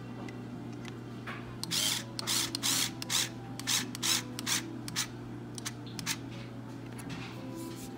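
Hand driver turning a screw through an RC car's skid plate: a run of short scraping clicks of the tool in the screw head, uneven in spacing, from about two to six seconds in.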